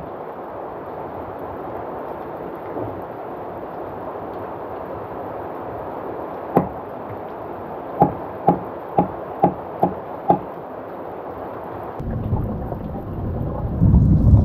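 Heavy rain falling steadily, broken around the middle by a run of sharp knocks, about two a second. Near the end a low rumble of thunder starts and swells.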